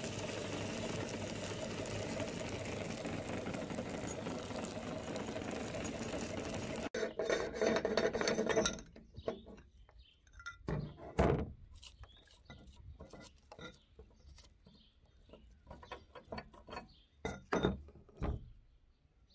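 Cast-iron meat grinder crushing hard candy-coated eggs, a steady grinding noise for about seven seconds. It then stops, and scattered metal clanks and clicks follow as the grinder's end ring and cutting plate are unscrewed and pulled off.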